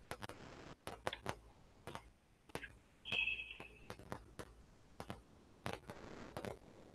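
Faint, irregular clicks of a computer mouse or pen being worked, with a short high steady tone a little after three seconds in.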